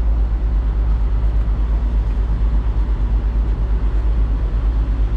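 Heavy diesel machinery engine running steadily, a loud low rumble.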